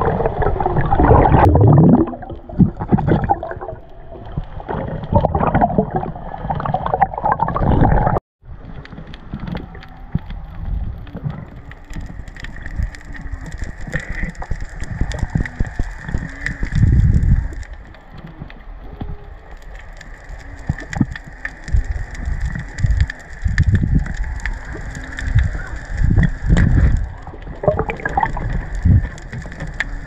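Underwater sound during a dive: churning water and bubbling. The sound drops out briefly about eight seconds in, then gives way to a quieter, steadier hiss broken by occasional louder bubbling swells.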